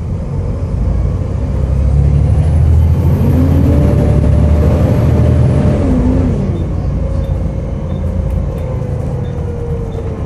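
Volvo B7TL double-decker bus's six-cylinder diesel engine running under the floor, heard from on board, with a low rumble. It swells about two seconds in with a whine that rises, holds and then falls away after about four seconds.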